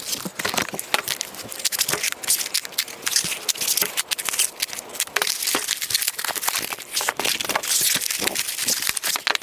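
White foam packing blocks and their plastic wrap crinkling and rustling as they are handled and pulled apart to free the battery cells, with many small clicks and crackles throughout.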